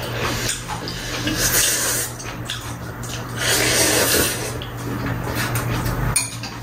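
Ramen noodles being slurped, with two long noisy slurps about a second and a half in and again at three and a half seconds, and scattered clicks of chopsticks against bowls toward the end.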